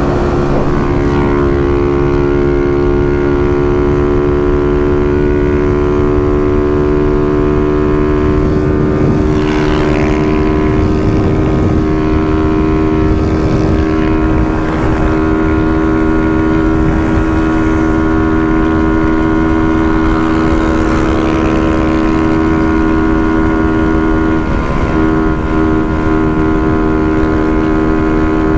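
Motorcycle engine held at steady high revs at speed, its pitch barely changing, with wind noise under it.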